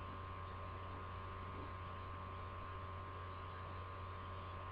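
Steady low electrical hum with a faint even hiss and a few faint steady higher tones: the recording's background noise.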